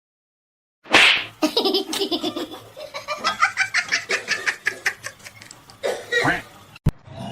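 A person laughing in a run of quick repeated bursts, after a short loud burst of noise about a second in.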